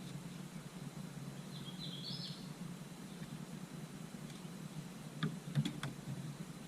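A short run of high bird chirps over a steady low hum, then a few sharp knocks or clicks about five seconds in.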